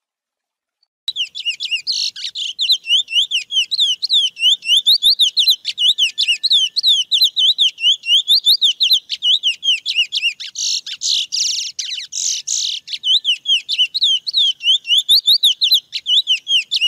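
Chestnut-bellied seed finch (curió) singing the wild 'mateiro' song type: a long, fast run of repeated sweeping notes, about four a second, broken by buzzy stretches. The song starts abruptly about a second in.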